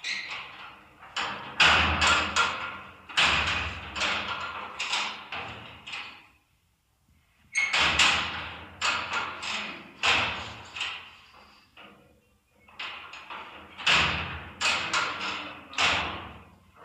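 A series of knocks and thumps in three groups of several strikes each, with short silent gaps between the groups.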